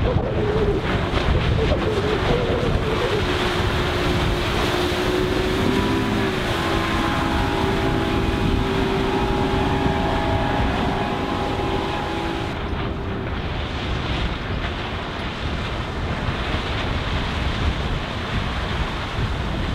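Mercury 150 hp oil-injected two-stroke outboard running at speed, its tone wavering at first, then holding steady before fading out about two-thirds of the way through. Heavy wind noise on the microphone runs under it throughout.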